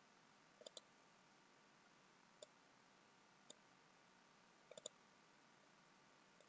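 Faint computer mouse clicks over near silence: a double click just under a second in, single clicks about two and a half and three and a half seconds in, then a quick run of three clicks just before five seconds.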